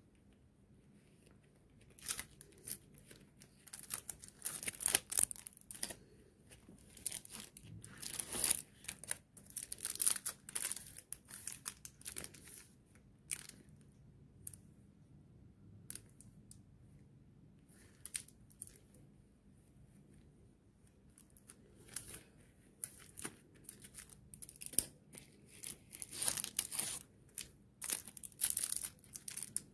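Thin clear plastic brush sleeves crinkling and crackling as they are handled in rubber-gloved fingers, in irregular bursts, with a quieter stretch midway.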